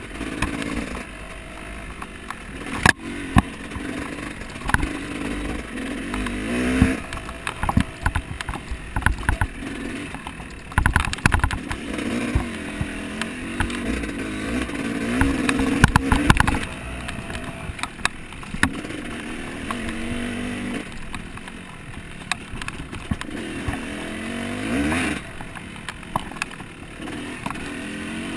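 Off-road motorcycle engine revving up and easing off again and again, its pitch climbing in repeated runs, with frequent knocks and rattles mixed in and one sharp bang about three seconds in.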